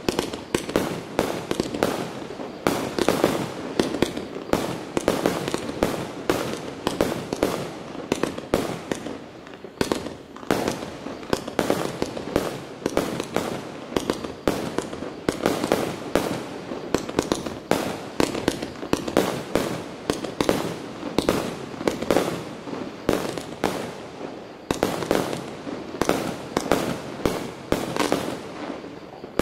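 Pyrotrade 'Willow Dream' multi-shot firework cake firing a continuous, rapid string of shots. Each launch and burst is a sharp report, several a second, with no pause.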